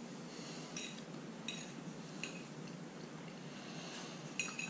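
Faint clinks of a metal fork against a plate, about four light taps spread over the few seconds, the last one the loudest, over a low steady room hum.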